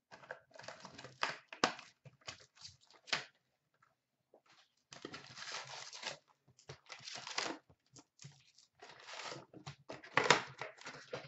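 A sealed 2016-17 Upper Deck SP Authentic hockey card box being torn open by hand: plastic wrap crinkling and cardboard tearing in irregular bursts with a few sharp rips. There is a pause about three and a half seconds in, and the loudest rip comes about ten seconds in.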